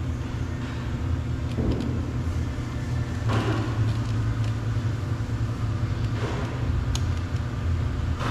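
Steady low rumble with a few faint clicks and taps.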